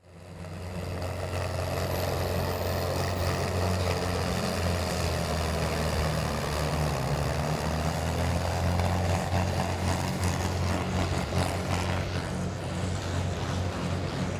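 A pulling tractor's diesel engine running hard under load as it drags a weight-transfer sled. It is a steady, deep engine note that fades in over the first second.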